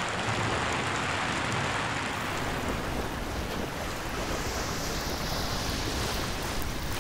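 Steady rushing of water: rain pattering on a pool gives way about two seconds in to a fast, shallow stream rushing over stones.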